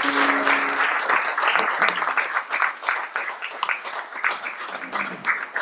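Audience applauding: dense clapping that thins out into scattered claps and fades towards the end.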